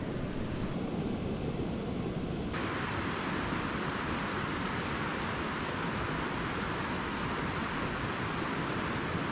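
Steady rushing noise with no distinct events; it turns abruptly brighter and hissier about two and a half seconds in.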